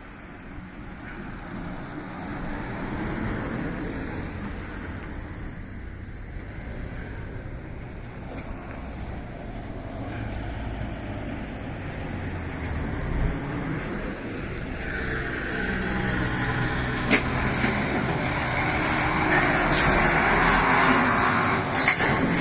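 A diesel railcar approaching the level crossing: the engine and the wheel-on-rail noise grow steadily louder, with a few sharp clicks in the last several seconds.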